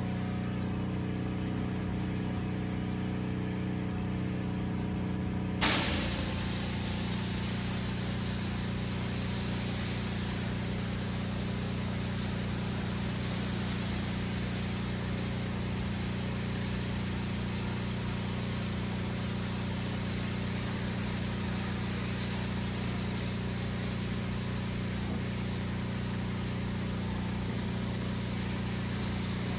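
Pressure washer engine running steadily; about six seconds in the spray starts with a sudden burst, and a steady high-pressure water hiss then continues over the engine.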